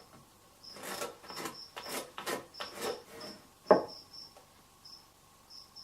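Wood chisel cutting a notch in a pine 2x4: a run of irregular scraping and knocking strokes, the sharpest about two-thirds of the way through. Faint high chirps repeat in short notes throughout.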